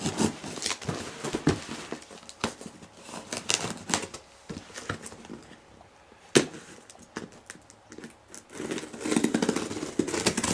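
Utility knife slitting the packing tape on a cardboard box and hands pulling the tape off the flaps: irregular scraping and rasping with scattered sharp clicks, one loud click about six seconds in, and a longer rasping stretch near the end.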